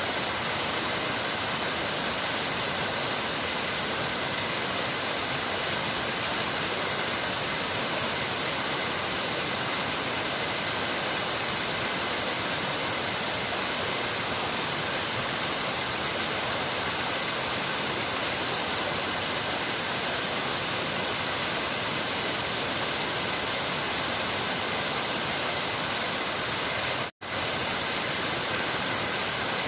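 Steady rushing of running water, even and unbroken except for a split-second gap near the end.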